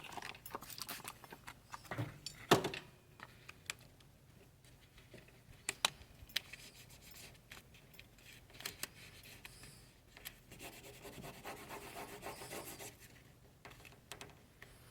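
Vinyl lettering and its application mask being rubbed down onto a surface by hand, a scratchy rubbing with scattered sharp taps and clicks, the loudest about two and a half seconds in and a longer stretch of rubbing near the end.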